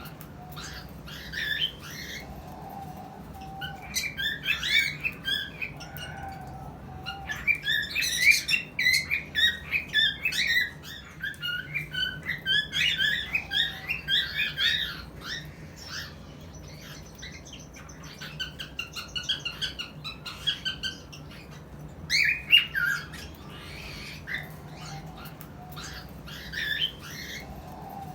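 Cockatiels chirping and squawking in rapid bouts of short calls, with brief pauses between the bouts.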